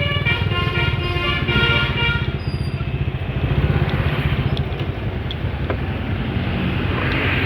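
Container truck's Basuri telolet horn playing its multi-tone melody, cutting off about two seconds in, over the steady low rumble of the truck's engine. After the horn stops, engine and road noise continue.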